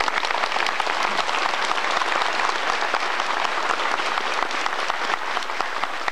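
Large seated audience applauding: dense, steady clapping that eases off slightly near the end.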